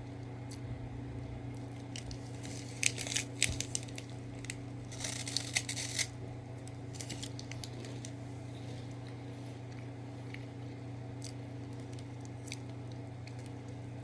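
Plastic snack wrapper crinkling and rustling in two short bursts, about three and five seconds in, over a steady low hum.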